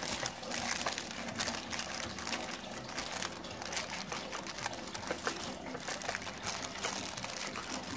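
A plastic lining crinkles and rustles, with many small irregular clicks, as cooked rice is pressed down into a plastic-lined tin mould by hand and with a metal spoon.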